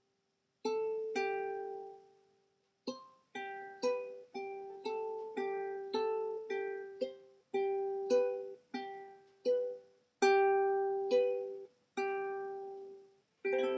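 Background music: a slow melody of single plucked string notes, each ringing out and fading, with brief gaps between phrases.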